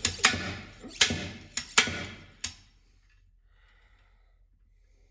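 Slide hammer striking its stop in about six sharp metal clanks over two and a half seconds, irregularly spaced, then stopping. It is pulling a rust-seized gear and bearing off the splined shaft of an Allis-Chalmers B tractor transmission.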